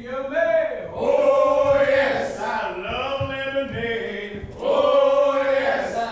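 Men singing a cappella in a slow, chant-like chain-gang work song, with long held notes.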